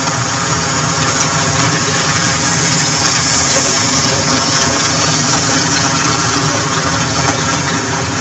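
Engine idling steadily, a constant even running note with a low rumble.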